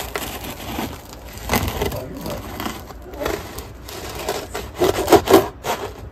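Bread knife sawing through the hard crust of a homemade boule, the crust crackling and crunching with each stroke. The loudest crunches come about five seconds in.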